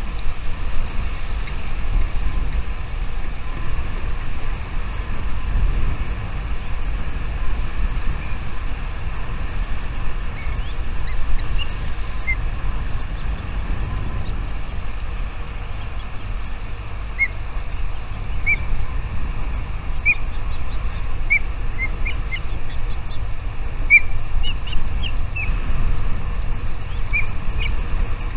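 Small birds chirping in short high notes, sparse at first and more frequent in the second half, over a steady low rumble.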